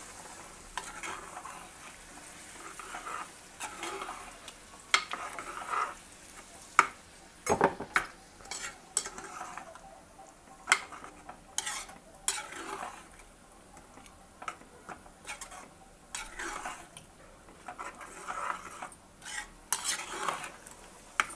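A metal ladle stirring and scraping thick chickpea masala gravy in an aluminium pot, with irregular sharp clinks and knocks of the ladle against the pot.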